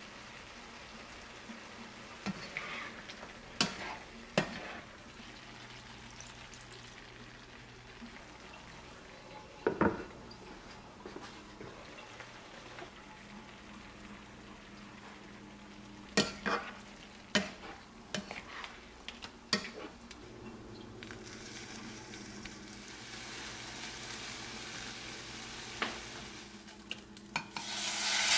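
Tofu and vegetables sizzling in a wok, with a utensil knocking against the pan about six times. The sizzle grows louder over the last several seconds.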